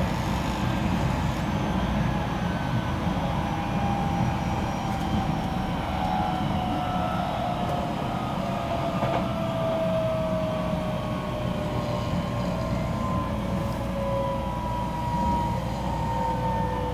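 Running sound of a Keisei new AE-series train heard inside the passenger cabin: a steady rumble of wheels on rail, with the motor whine slowly falling in pitch as the train slows.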